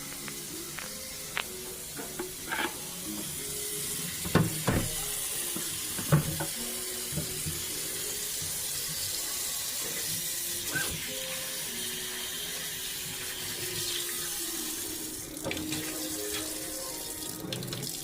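Tap water running steadily as a soft-wash pump is rinsed of bleach, with a few knocks and clunks as the pump is handled, the loudest about four and six seconds in.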